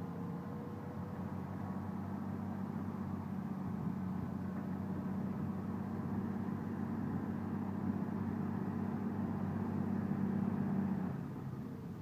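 Modern tractor's diesel engine running steadily while pulling a plough, growing louder as it comes closer, then dropping off suddenly near the end.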